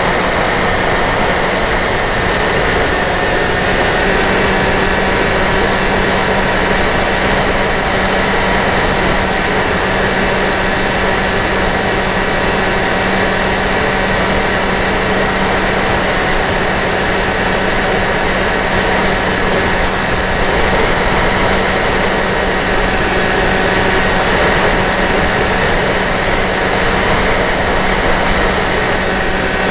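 Electric motor and pusher propeller of a Dynam Hawk Sky RC plane running at a steady pitch in flight, mixed with a rushing hiss of wind, heard through the plane's onboard camera microphone.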